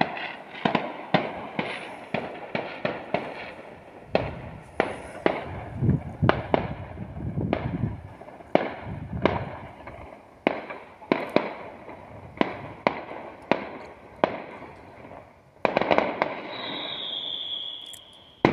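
Fireworks going off over a village across a valley: a rapid string of sharp bangs with low echoing rumbles, and a high whistle near the end.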